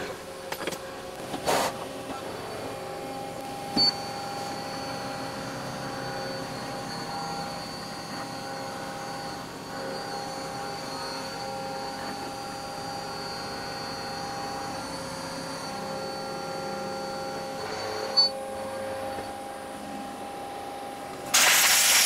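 Horizontal CNC machining centre's spindle running a cutter through a metal part, a steady machine hum with a few thin, steady whining tones. Near the end a loud compressed-air blast hisses as the part is blown clear of chips.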